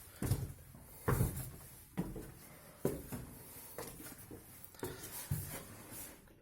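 Footsteps climbing the steps up to a loft sleeping level, a dull thump about once a second.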